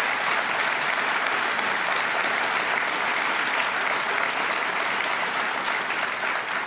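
Audience applauding, a steady, sustained round of clapping from a seated crowd.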